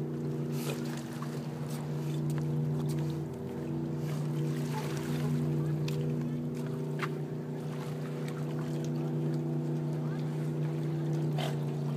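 A motor hums steadily at one unchanging pitch, with a few faint clicks and small splashes over it.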